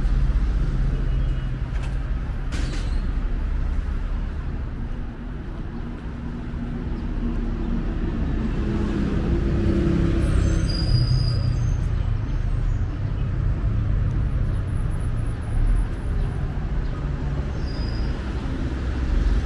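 Road traffic on a city street: a steady noise of vehicle engines running and passing.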